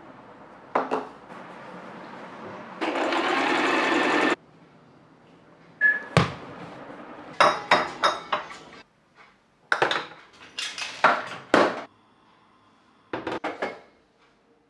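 Glass jars and plastic containers being handled and set down on hard surfaces: a series of sharp clinks and knocks in several quick clusters. Near the start there is a steady hiss lasting about a second and a half.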